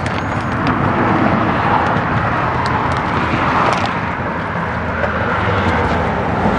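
Steady outdoor background rumble and hiss, with a few light clicks.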